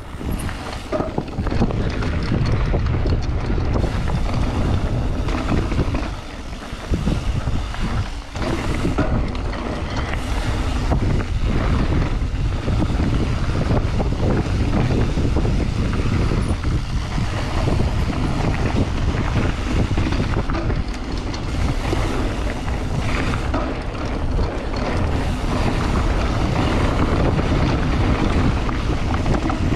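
Wind noise on the microphone over the rolling and rattling of a mountain bike ridden along a trail, loud and steady, dropping back briefly about six to eight seconds in.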